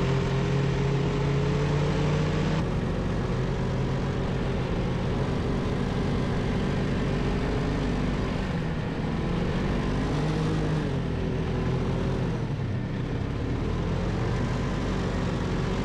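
Snowmobile engine running at trail speed, heard from the rider's seat, steady with its pitch dipping and then climbing again a couple of times.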